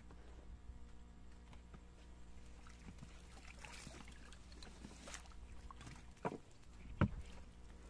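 Faint water splashing and handling noises, with two sharp knocks near the end, the second louder.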